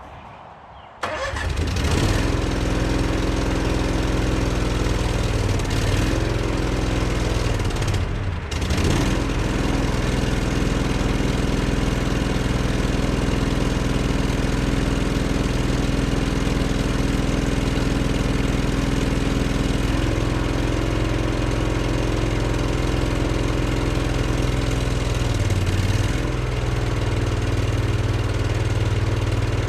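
Case 1816 skid steer engine starting suddenly about a second in, then running steadily, with a brief break about eight seconds in. Its running note shifts twice in the second half.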